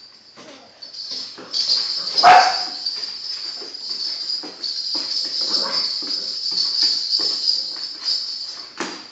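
Puppy playing with a toy ball on a wooden floor: a steady high jingle from the ball as it rolls, light taps of paws and ball on the boards, and one loud sharp sound about two seconds in.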